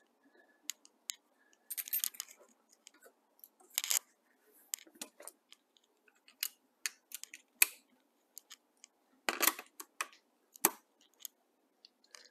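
Small clicks, taps and brief scrapes of parts being handled and fitted into an open Mossberg 590A1 pump shotgun receiver as the universal cartridge adapter is reinstalled. The clicks come irregularly, one by one, with a few longer scrapes among them.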